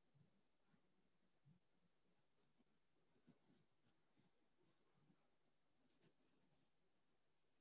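Near silence: room tone with faint, irregular light ticks, which come more often from about three seconds in.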